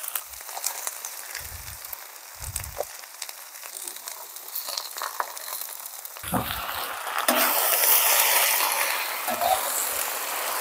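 Marinated dakgalbi chicken poured onto a hot cast-iron cauldron-lid griddle, sizzling. The sizzle swells sharply about six seconds in as the meat spreads over the hot lid. Before that there are light clicks and two dull thumps about two seconds in.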